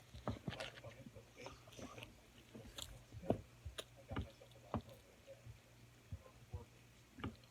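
Close-up eating sounds: irregular wet mouth clicks and smacks of chewing, over a steady low hum.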